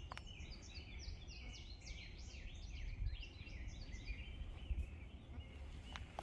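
A songbird singing one long, rapid, warbling run of short high falling notes that stops about five and a half seconds in, over a steady low rumble.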